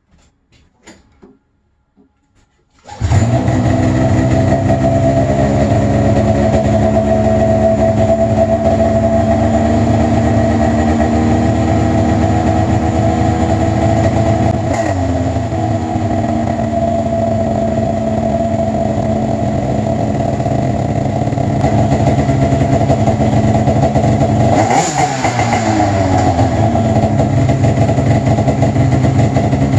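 2002 Arctic Cat ZR 800 snowmobile's freshly rebuilt two-stroke 800 twin starting suddenly about three seconds in, then running steadily on the stand through its third break-in heat cycle. Short throttle blips rise and fall about halfway and again near the end.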